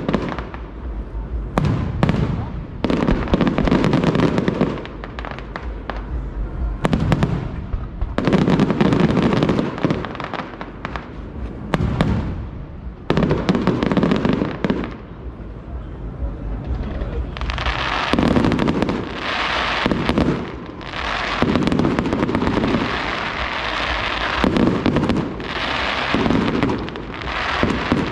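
Fireworks display: shells bursting one after another with deep booms. About halfway through the bursts come thicker and brighter, into a dense barrage.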